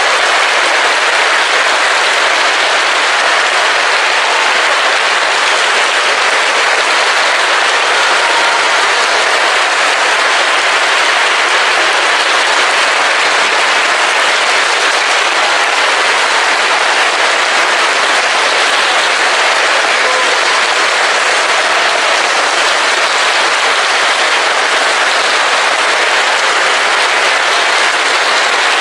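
A large audience applauding: dense, steady clapping that runs on without a break.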